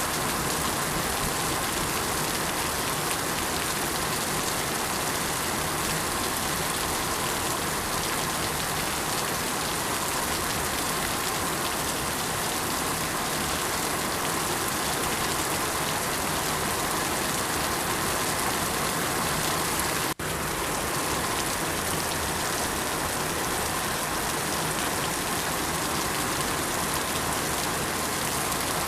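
Steady, even rainfall hissing without change. For an instant about twenty seconds in the sound drops out sharply, then resumes as before.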